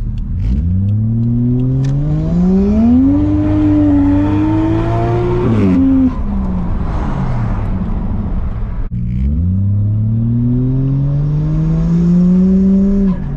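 A turbocharged JZ-series straight-six in a JZX100 Toyota Chaser, heard from inside the cabin, pulls hard under about 16 psi of boost. Its revs climb steadily for about five seconds, then the throttle lifts with a blow-off valve release and the revs fall. A second pull climbs from about nine seconds in and cuts off again at the very end.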